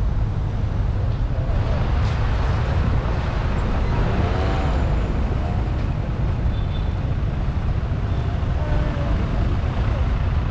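City street traffic on a wet road: a steady low rumble of vehicles, with a passing vehicle's hiss swelling about a second and a half in and fading by about five seconds. Faint voices of passers-by come through twice.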